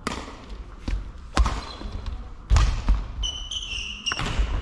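Badminton rally on a wooden sports-hall court: sharp knocks of racket strikes on the shuttlecock and footfalls, echoing in the hall, with a high shoe squeak on the floor for about a second near the end.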